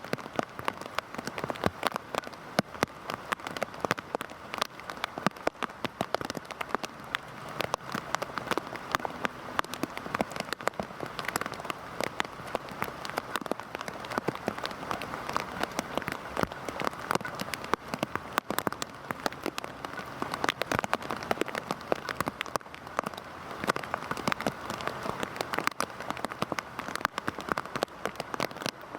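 Heavy rain falling steadily: a dense, fast patter of individual drops striking a surface over an even hiss, with no let-up.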